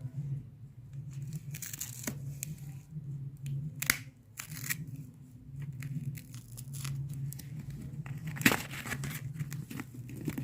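A box's packaging being torn open by hand: tearing and crinkling with scattered sharp clicks and rustles, and one louder click a little before the end.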